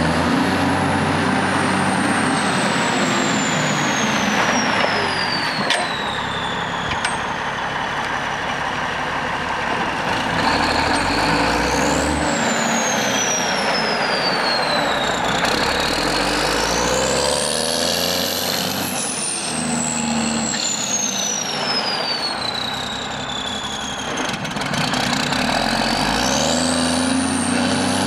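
Champion 740 motor grader's six-cylinder Cummins diesel running as the grader drives and turns, revving up and down several times. A high whine climbs with each rev and then falls slowly away.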